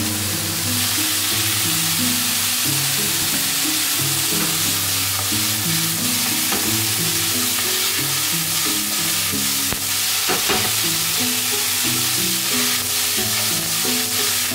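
Bok choy sizzling in a hot frying pan on a gas flame as it is stir-fried with chopsticks. The sizzle grows louder about a second in, as soy sauce is poured into the pan, with a few clicks of the chopsticks against the pan near the middle. Soft background music with a slow melody plays underneath.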